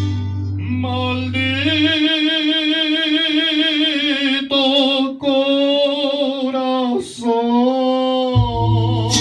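A man singing a ranchera into a handheld microphone, holding long notes with a wide vibrato. He is accompanied by instrumental backing whose low bass drops out for most of the middle and returns near the end.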